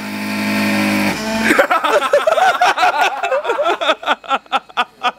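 Power drill rigged as a makeshift lathe, running with a steady hum, then spinning down about a second in. Music then comes in with a quick run of notes.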